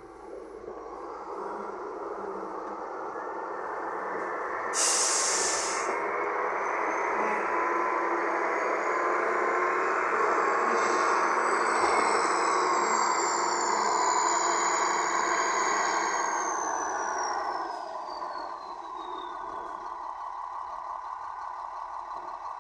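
Heavy diesel engine of a wheel loader working under load, with a turbo whistle that climbs, holds high, then falls away as the engine drops back near the end. A short sharp hiss of air comes about five seconds in.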